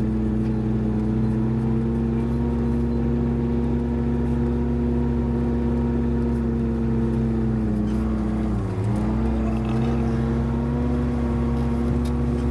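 Vehicle engine and road noise heard from inside the cab while driving, a steady drone. About nine seconds in, the engine pitch briefly dips and comes back up.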